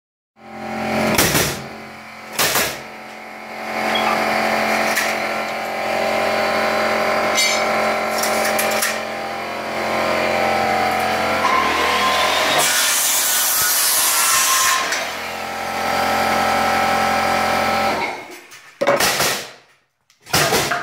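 Small pancake air compressor's electric motor and pump running steadily, with two sharp bangs near the start and a burst of hiss in the middle. The motor stops near the end, followed by a few knocks.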